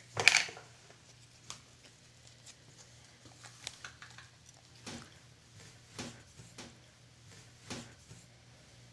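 Faint, scattered taps and clicks of hands handling a plastic Play-Doh tub and lid and pulling out the dough, over a low steady hum, with one sharper, louder click right at the start.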